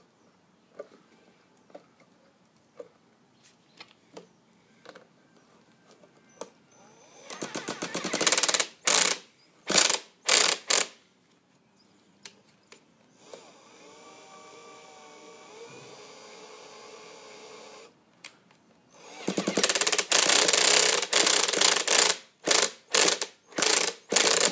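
Small nitro engine of a 1/5 scale RC motorbike being cranked over in repeated short, rattling bursts without catching, with a quieter steady hum between the bursts. It will not start, and the owner reports the clutch and drivetrain locking up.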